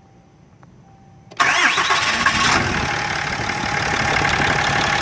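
2017 Dodge Ram's 6.7-liter Cummins inline-six diesel starting: it catches suddenly about a second and a half in, with a short rising whine, then settles into a steady idle.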